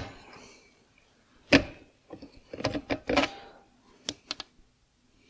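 Short sharp clicks and knocks of engine parts and tools being handled while a clutch is fitted on a scooter engine: one loud knock at the start, another about a second and a half in, a quick cluster around three seconds, then two light ticks.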